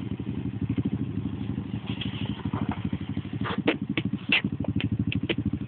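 Vehicle engine running steadily at low speed, a fast even pulsing. From about three and a half seconds in, sharp irregular clicks and knocks sound over it.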